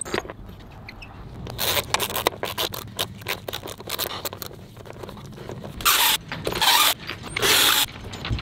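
Hand thread-tapping in a drilled hole in a fibreglass deck, a run of clicks and scrapes. Near the end come three short bursts of a cordless drill.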